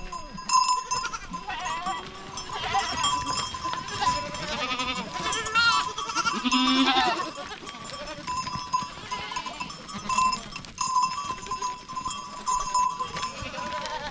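A flock of goats bleating, many calls overlapping one another, with animal bells ringing among them.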